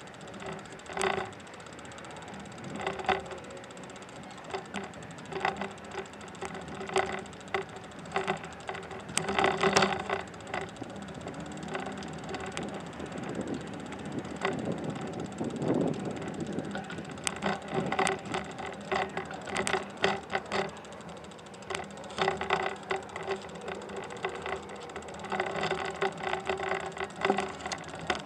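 A bicycle and its mounted camera rattling while rolling over bumps: irregular bursts of clatter every second or so over a steady rolling noise.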